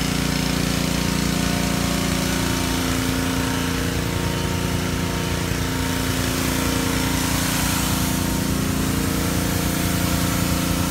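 Gas pressure washer running steadily, its water jet hissing as it rinses caked clay off an ATV's footwell.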